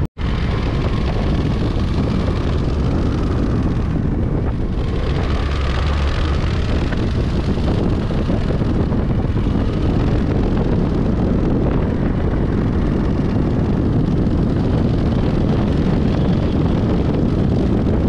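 Motorbike on the move: steady wind rushing over the microphone, with the engine running underneath.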